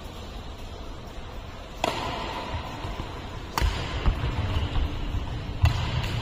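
Badminton rackets striking a shuttlecock in a rally: three sharp hits about two seconds apart, each briefly echoing in the hall, with low thumps of footwork on the court between them.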